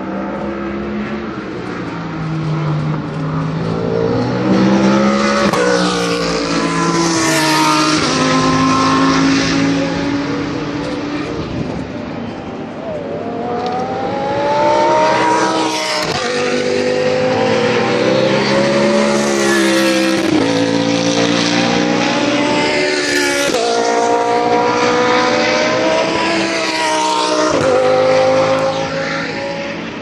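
GT3 race cars at racing speed, several in succession. Their engine notes overlap and climb, each breaking off and resuming at gear changes, and the sound swells in waves as the cars come through.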